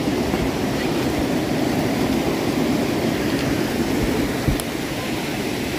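Steady outdoor rushing noise with an uneven low rumble, as from running water or wind, broken by a single thump about four and a half seconds in.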